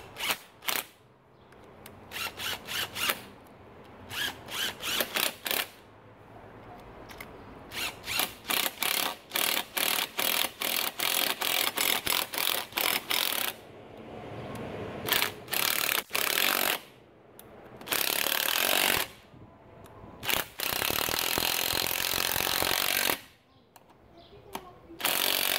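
Cordless DeWalt power driver running bolts into a water pump housing. For the first half it runs in quick, short trigger bursts, several a second; later it runs in longer spells of a second or two.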